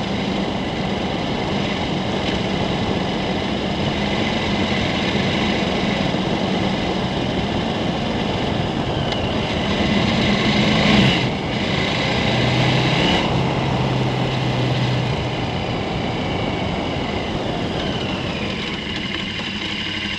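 KTM 1290 Super Adventure's V-twin engine running under way at a steady road speed, over an even rush of wind and road noise. About eleven seconds in the engine note changes, with a brief swell and dip in loudness, then settles on a lower steady tone.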